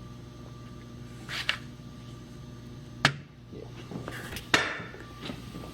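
A few sharp clicks and knocks of spark plug wire boots being pushed onto the spark plugs, the two loudest about three and four and a half seconds in, over a steady low hum.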